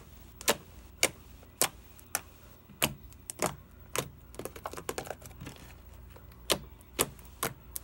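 Purple slime squeezed and pressed by hand, trapped air popping out in sharp clicks about every half second, with a run of softer crackles about halfway through.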